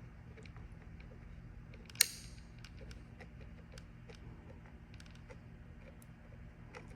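Small clicks and taps of hardware being handled, with one sharp click about two seconds in, over a steady low hum.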